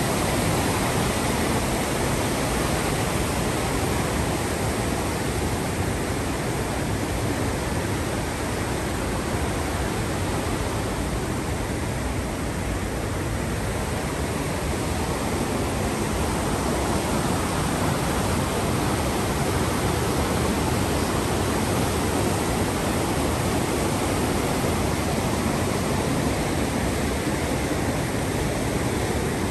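Una River rapids and waterfalls in high water: a steady rushing of churning white water, a little softer about halfway through.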